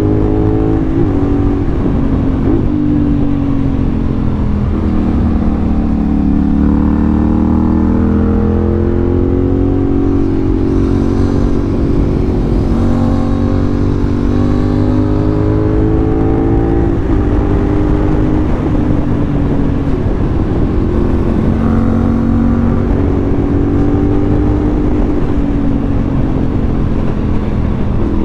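CFMoto 450SR parallel-twin engine running under way, its pitch falling over the first few seconds, then rising and easing again and again as the throttle opens and closes. A steady low rumble lies underneath.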